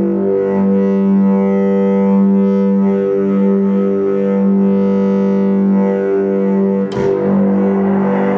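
Sustained low instrument-like drone of the 'sky trumpet' kind: one low note held steady while higher notes shift every second or so. A sharp click comes about seven seconds in, after which the sound turns rougher and noisier.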